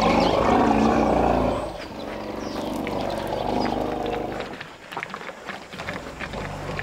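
African elephants giving deep, drawn-out rumbling calls: a loud one for about the first second and a half, then a softer one that fades out about four seconds in. These are greeting rumbles, a herd welcoming its young.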